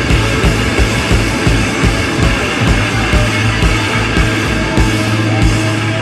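Loud rock music with a fast, steady drum beat over a sustained bass line.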